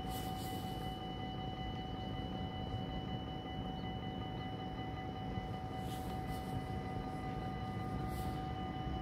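Dutch level-crossing warning bells ringing without a break, a steady high ringing over a low rumble, sounding the warning that a train is approaching while the barriers are down.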